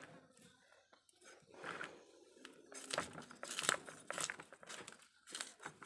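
Scales being scraped off a large hilsa fish with a boti blade: irregular short rasping strokes, coming thickest in the second half.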